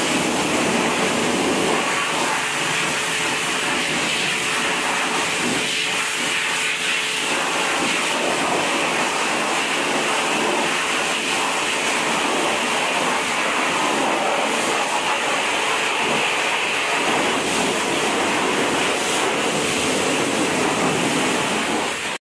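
Pressure washer jet spraying water onto a motorcycle: a loud, steady hiss of the spray.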